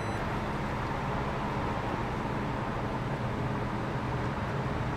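Steady street ambience of idling vehicles: a low engine hum under an even hiss, with no distinct events.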